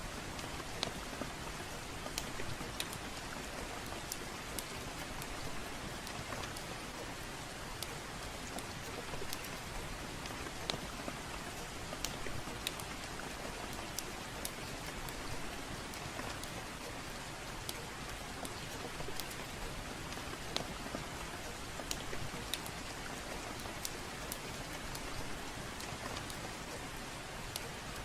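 Steady rainfall with a wood fire crackling over it: a constant hiss of rain with scattered sharp, irregular pops and snaps.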